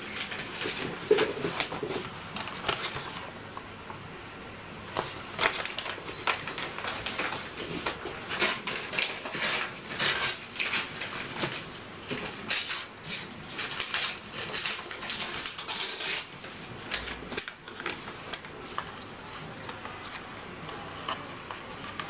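Irregular light clicks, taps and paper rustling from hands handling craft materials and tools on a tabletop, busiest through the middle and thinning out in the last few seconds.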